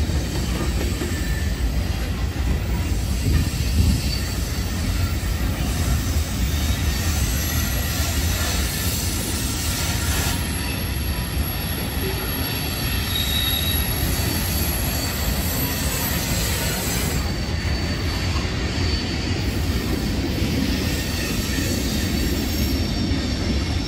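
CSX freight train's tank cars and covered hoppers rolling past: a steady rumble of steel wheels on rail, with a few brief high wheel squeals, one about halfway through and one near the end.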